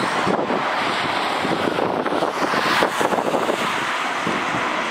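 Boeing 787-8 jet engines running at takeoff thrust as the airliner accelerates down the runway: a steady, loud noise, with gusting wind buffeting the microphone.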